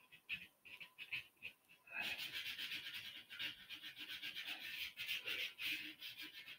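Sandpaper rubbed by hand over the banjitar's wooden neck in quick back-and-forth strokes, a few scattered strokes at first, then steady and louder from about two seconds in. The sanding smooths down wood filler and the shallow marks left by a flush-cut saw before staining.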